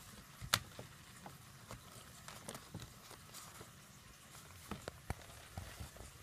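A paper shopping bag crinkling and crackling as a kitten scrambles over it and paws at it, in irregular sharp rustles and taps; the loudest crackle comes about half a second in.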